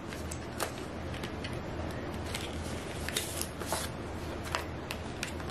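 Paper and thin card rustling, sliding and crinkling as a white card paperwork envelope is opened and leaflets are drawn out, with scattered light taps over a low steady hum.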